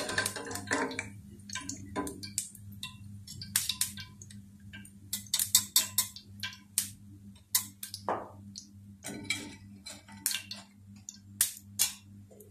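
Irregular sharp clicks and taps of a wire skimmer and a steel spatula against a steel frying pan as fried pakoras are lifted and drained from hot ghee, some coming in quick clusters, over a steady low hum.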